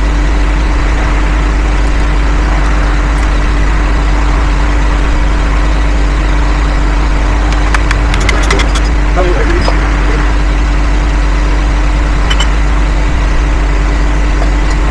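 An engine running steadily at idle, a constant loud drone. A quick run of metallic clicks and clinks comes about eight seconds in.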